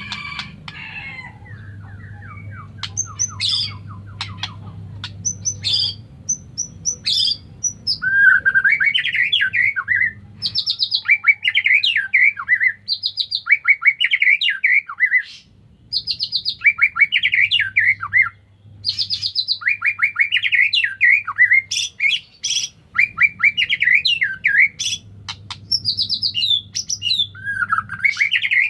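White-rumped shama (murai batu) singing. The first several seconds hold scattered sharp high notes. From about eight seconds in, the bird repeats short, fast phrases of trilled notes every second or two.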